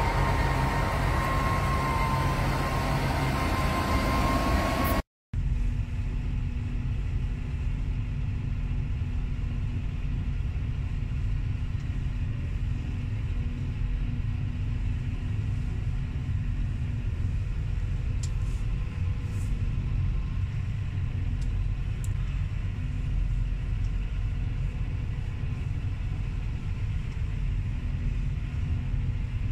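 Farm tractors, a Fendt at the front, driving past close by on a road, their engines running with a steady whine. After a brief dropout about five seconds in, a steady low engine rumble heard from inside a moving tractor's cab.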